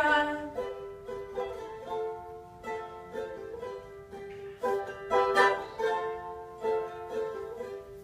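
A small many-stringed plucked instrument played solo, picking a melody over a recurring note, with a few sharp strummed chords.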